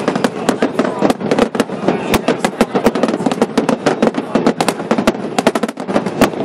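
Fireworks display going off: a dense, continuous crackle of many sharp cracks and pops a second over a steady roar of bursts.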